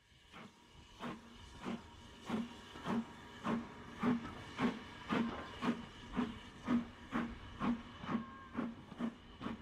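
Steam locomotive working a train, its exhaust beating in a steady chuff about twice a second and quickening slightly as it gets under way.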